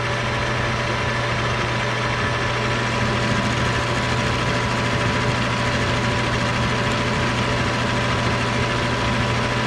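Metal lathe running steadily, its chuck spinning a steel bolt while the tool takes a light turning cut off the bolt's shoulders.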